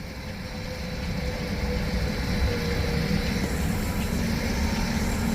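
Helicopter engine running up: a low rumble that builds over the first two seconds, then holds steady.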